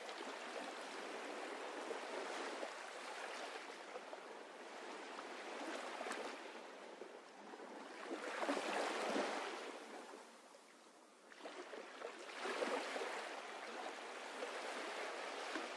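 Gentle sea waves washing, a soft rushing that swells and eases every few seconds, dropping out briefly about ten seconds in.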